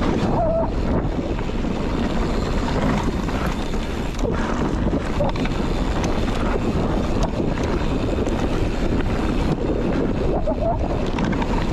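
Wind buffeting the microphone over the steady rumble of mountain bike tyres rolling fast along a dirt singletrack.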